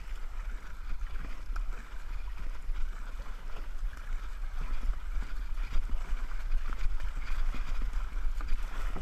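Fast kayak paddling: the double-bladed paddle splashing in and out of the water stroke after stroke, with water washing along the hull, over a steady low rumble.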